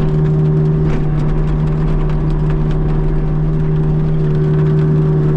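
Kubota U55-4 mini excavator and its Prinoth M450e-900 forestry mulcher head running steadily, heard as a loud, even drone with a steady hum, with scattered light ticks over it.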